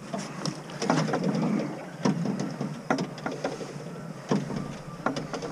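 Water slapping and knocking against a small aluminium boat's hull at irregular moments, over a steady hiss of wind and sea.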